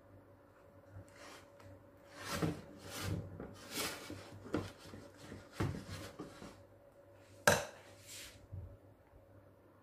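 Wire balloon whisk stirring thick cake batter in a glass bowl, its wires scraping and clinking against the glass in irregular strokes, with one sharper clink near the end as the whisk is laid down in the bowl.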